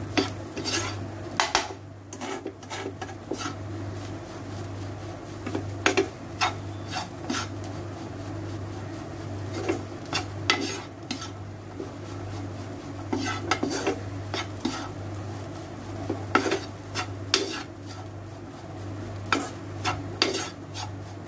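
Slotted metal spatula scraping and knocking against a nonstick frying pan while a soft mashed yellow-pea masala is stirred and pressed, in irregular clicks and scrapes.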